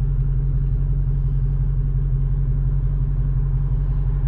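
Car engine idling: a steady, even low rumble.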